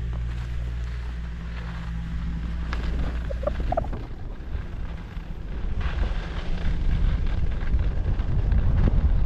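Wind buffeting the microphone of a skier's camera during a run, mixed with the hiss of skis on snow. It grows louder from about six seconds in.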